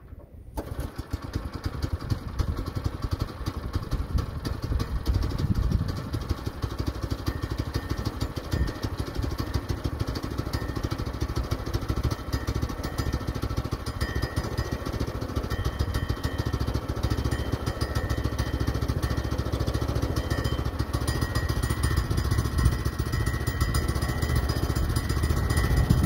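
Small gasoline engine of a Woodland Mills portable band sawmill running steadily, with a rough, rapid firing pulse.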